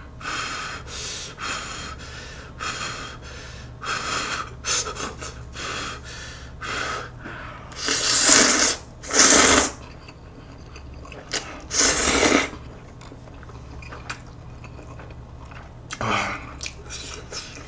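A person slurping and eating spicy stir-fried instant noodles close to the microphone, with a run of short slurps and then two long, loud slurps about eight seconds in and another around twelve seconds.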